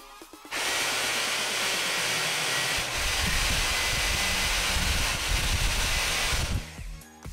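A loud, steady hiss like rushing air or gas. It starts about half a second in and cuts off shortly before the end, with a low rumble joining it about three seconds in.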